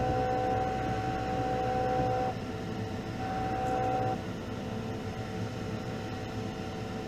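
Spray booth exhaust fan running steadily, with a steady two-tone hum over it that cuts out about two seconds in, comes back briefly, and stops again about four seconds in.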